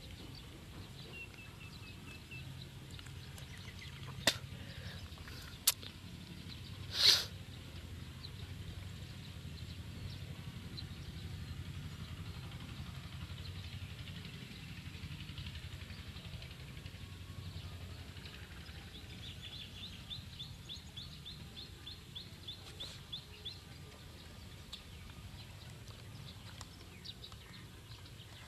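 Outdoor ambience with a steady low hum and faint bird chirps, including a rapid ticking trill about two-thirds of the way through. Two sharp clicks and then one brief, louder sharp sound come about a quarter of the way in.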